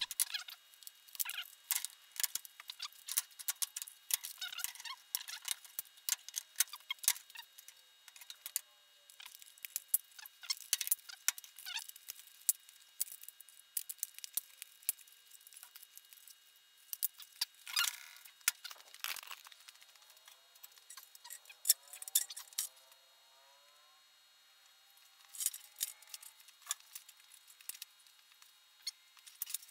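Plastic parts of a Rec Tek badminton net frame (black base pieces and blue tubing) being handled and fitted together: an irregular run of sharp clicks, knocks and rattles, with a few short squeaks of plastic about two-thirds of the way through.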